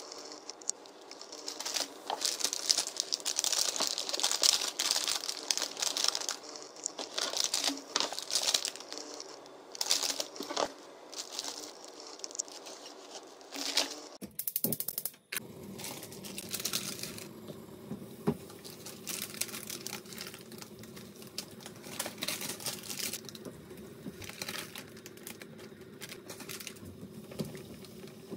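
Clear plastic bread bags crinkling and rustling as bakery rolls are unwrapped by hand. About halfway through it gives way to a steady bubbling: instant ramen noodles boiling in a stainless saucepan on a gas hob.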